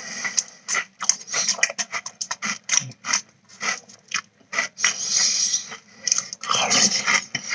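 Close-up chewing of Cinnamon Toast Crunch cereal: a quick, irregular run of crisp crunches, thickening into a denser stretch of crunching near the end.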